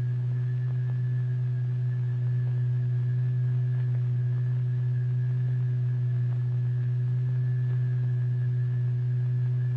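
A steady low pure tone with faint higher overtones: the sine tone that sets the membrane vibrating and works the plastic substance into balls.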